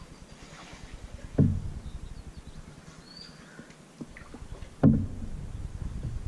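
Canoe paddling, with two sharp knocks about three and a half seconds apart as the paddle strikes the side of the Old Town Saranac 146 canoe during its strokes.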